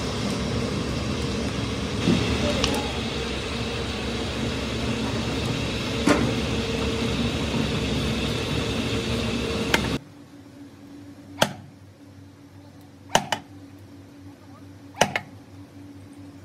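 Steady mechanical hum and rush of a rotating drum furnace with a wood fire burning inside, cutting off abruptly about ten seconds in. Then three sharp knocks, about two seconds apart, over a quiet background.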